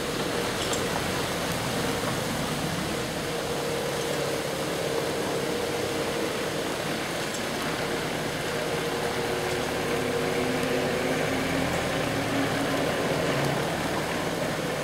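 Steady rushing background noise, with the faint hum of a distant Manx Electric Railway electric tram running along the line. The hum fades about halfway through as the tram moves off.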